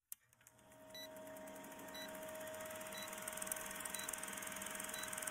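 Old film-countdown sound effect: a click, then a film projector's steady whirr and fast clatter with a short beep about once a second, five times.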